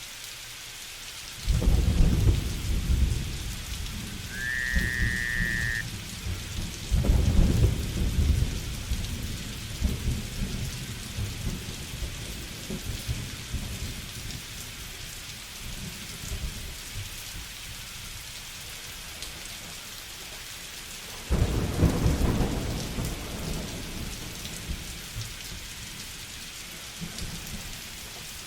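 Steady rain hissing under a thunderstorm, with thunder breaking in suddenly and rolling on three times: about a second and a half in, about seven seconds in, and again about twenty-one seconds in. A short whistle that rises and then holds is heard about four seconds in.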